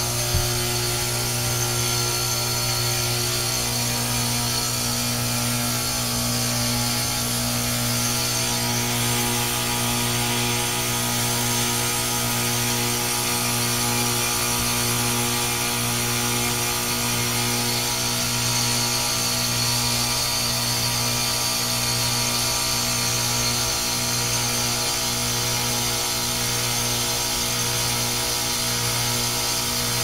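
2010 ICP Tempstar heat pump running in its defrost cycle: a steady low hum with a broad hiss over it, unchanging throughout.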